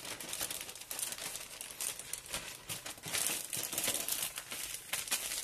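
A clear plastic zip-lock freezer bag crinkling and rustling in the hands as it is sealed and handled, a continuous run of small crackles.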